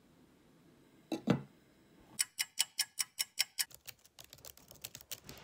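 A single dull knock about a second in, then keyboard typing: a fast, even run of sharp key clicks, followed by lighter, more scattered keystrokes.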